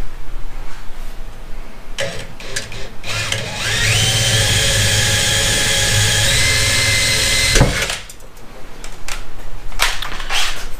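Cordless drill boring an eighth-inch pilot hole through the trunk lid's sheet metal: about three seconds in it spins up with a rising whine, runs steadily for about four and a half seconds, then stops abruptly. Short knocks and clicks come before and after it.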